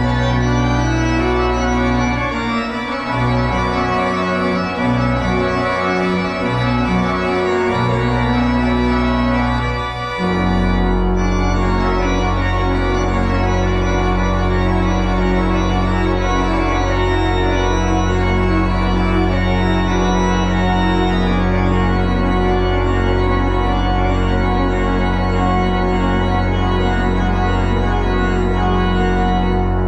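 Church organ playing chords with a moving bass line, then settling about ten seconds in on one full chord held steady.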